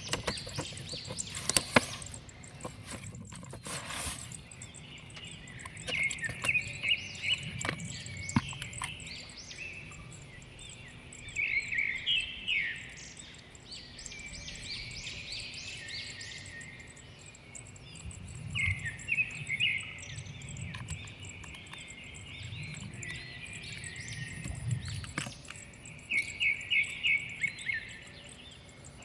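Wild birds chirping and singing in short repeated trilled phrases every few seconds, with a few sharp knocks about two and four seconds in.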